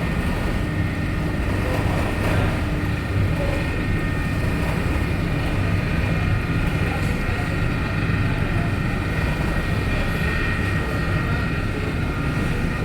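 A ferry's engines running steadily, a low drone with a faint steady whine above it.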